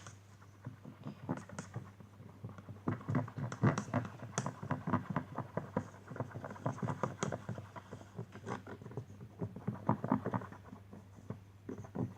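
Thick, sticky glue slime base being stirred: a dense, irregular run of wet clicks and smacks that comes and goes, busiest in the middle and thinning near the end.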